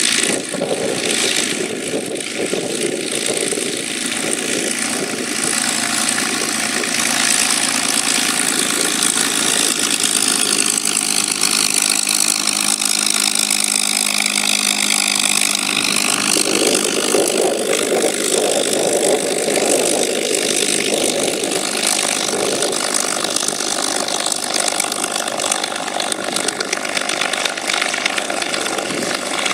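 North American TP-51C Mustang's V-12 Merlin engine running at low taxi power, with the propeller turning as the aircraft taxis past. The tone sweeps and shifts for several seconds midway as it goes by.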